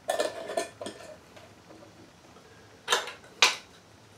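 Metal canning lids and screw bands clinking and scraping on glass mason jars as they are set on and screwed down: a run of quick scraping clicks in the first second, then two sharp clinks about half a second apart near the end.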